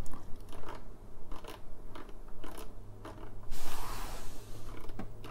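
Plastic stylus tapping and sliding on an oscilloscope's touchscreen: scattered light taps, and a longer scraping rub about three and a half seconds in, over a steady low hum.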